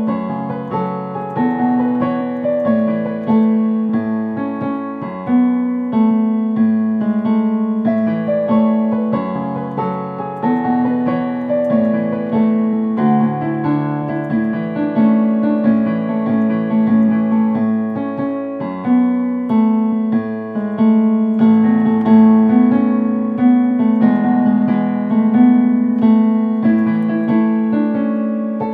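Digital piano played solo: a flowing piece of chords and melody, the notes held so that they ring into one another over a recurring low-middle note.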